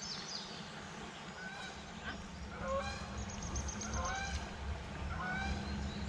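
Geese honking in a series of short calls, over a steady low hum.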